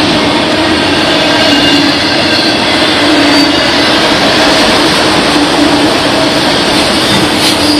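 Freight train of autorack cars rolling past close by: the steady, loud noise of steel wheels running on the rails, with a low hum that comes and goes.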